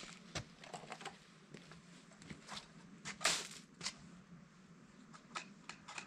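Scattered light clicks, knocks and scuffs of a pressure washer's spray lance and hose being handled and of footsteps on stone paving, over a faint steady low hum. A louder hissy scrape comes about three seconds in.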